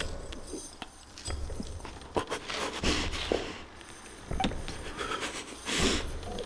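A man breathing, with two long noisy breaths about three seconds apart and scattered clicks and rustles in between.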